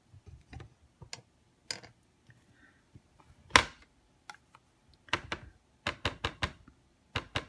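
Light plastic clicks and taps from handling a Stamparatus stamping platform, with one sharper click about halfway through. A quick run of taps follows as a compact ink pad is dabbed onto the stamp.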